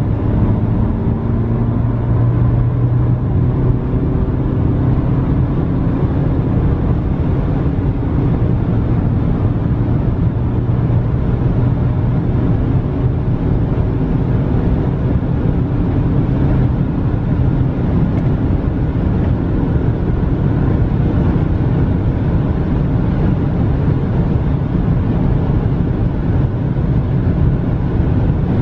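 Inside the cabin of a 2019 Honda Civic with the 1.8-litre four-cylinder petrol engine and CVT, accelerating hard at high speed. The engine drones at an almost unchanging pitch while road speed keeps rising, which is typical of a CVT holding the revs. Steady road noise runs underneath.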